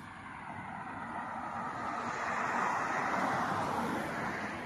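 A road vehicle passing by, its tyre and engine noise swelling to a peak about three seconds in and then fading away.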